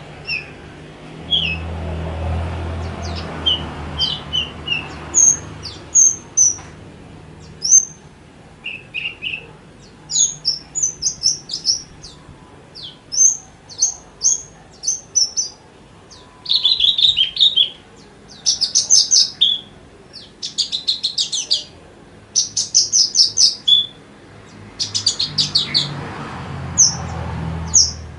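Javan bush lark (branjangan) singing a varied song of short chirps and whistles with brief gaps between phrases, broken by several fast rattling trills in the second half. A low hum sounds underneath at the start and again near the end.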